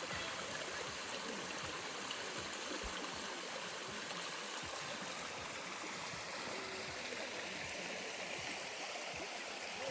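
Forest stream flowing, a steady even rush of water.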